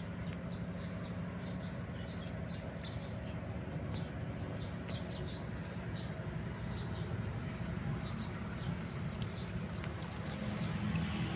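Small birds chirping in quick short notes again and again, over a steady low rumble.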